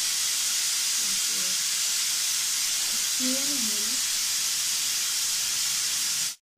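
Stovetop aluminium pressure cooker whistling: steam hissing steadily out from under the weight valve, a sign that the cooker is at full pressure, and one of the whistles counted to time the cooking. The hiss cuts off suddenly near the end.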